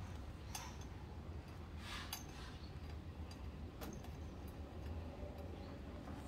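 Cats eating raw salmon from stainless steel bowls: scattered small clicks and clinks of teeth and food against the metal, over a low steady hum.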